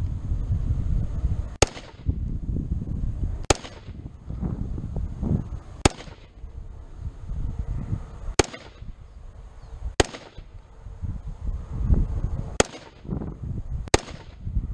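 Springfield Saint Edge AR-15 rifle firing 5.56 ammunition in slow aimed fire: seven single sharp shots, one to two and a half seconds apart. The rifle is cycling every round without stuck cases. A low rumble of wind on the microphone fills the gaps.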